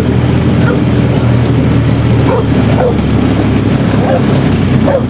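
A dog barking in several short barks over the steady running engine of the small utility vehicle being driven.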